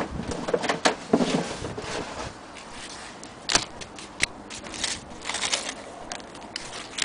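Handling noise: irregular clicks and taps with bursts of rustling as paper packets, booklets, a needle tin and scissors are picked up and shifted about.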